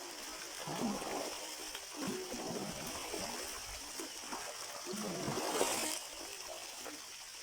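Water splashing over a steady rush of flowing water.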